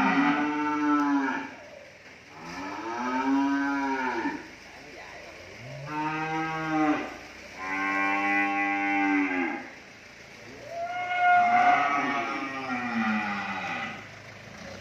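Cattle mooing: a run of about five long, loud calls, each rising and then falling in pitch, coming one after another with short pauses between.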